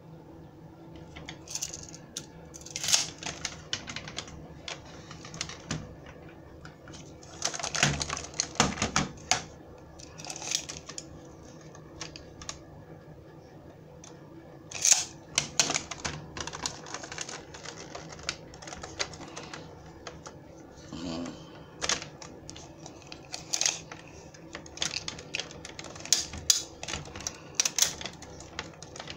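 Irregular clicking and tapping of a steel tape measure and a hard plastic toy being handled and repositioned, with short clusters of rapid clicks.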